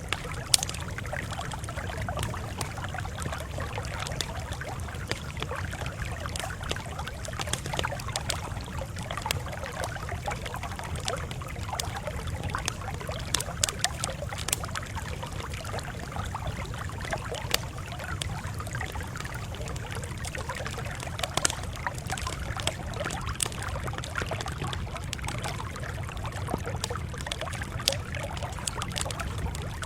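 Campfire crackling steadily, with frequent sharp pops and snaps over a low, even rumble.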